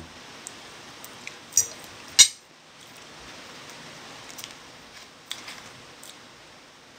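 A fork clinks twice against a plate, the second time sharply. After that come a few faint clicks as a syrup bottle is handled and its cap opened.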